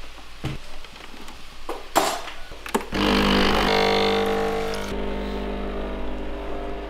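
A few sharp metallic clicks and clunks as an espresso machine's portafilter is handled and locked into the group head, the loudest about two seconds in. Then, from about three seconds in, sustained background music with held chords.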